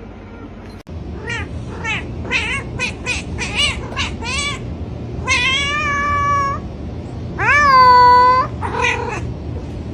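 A cat meowing: a quick run of short meows, then two long drawn-out meows, the second the loudest, and a short meow near the end, over a steady low hum.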